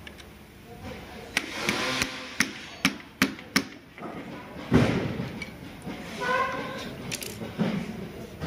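A run of sharp clicks from hand-tool work on an electric scooter's rear shock-absorber mount, as a long screwdriver turns a bolt, then a heavier thud about halfway through.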